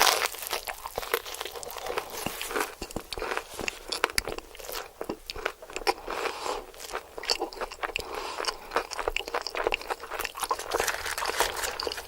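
A person biting and chewing crunchy fried chicken, with a dense run of crisp, irregular crunches.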